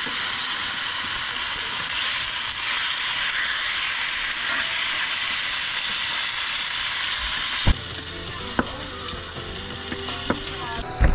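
Squash, hot dogs and potatoes sizzling as they fry in a pan, a steady hiss that stops abruptly about three-quarters of the way through. A few sharp clicks follow over a much quieter background.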